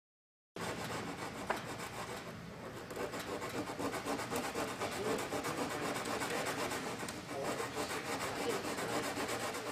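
Hand sanding of smoothing compound on an MQ-1B Predator wing: continuous rubbing of abrasive against the filled surface in quick repeated strokes, starting about half a second in.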